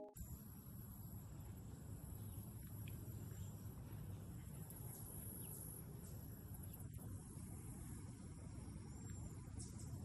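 Faint outdoor ambience by water: a steady low rumble with faint high insect-like chirps, one brief high note about nine seconds in.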